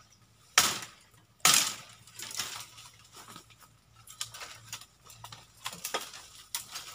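Branches and leaves being pulled and handled, with two loud sudden crackles about half a second and a second and a half in, then softer rustles and clicks.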